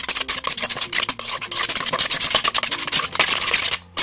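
A spoon scraping and stirring against a stainless steel mixing bowl, mixing dye into white glue, in quick rasping strokes that pause briefly near the end.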